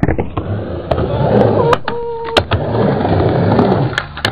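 Skateboard wheels rolling on a mini ramp, with several sharp clacks of the board and trucks hitting the ramp and coping. A short steady squeal sounds about two seconds in.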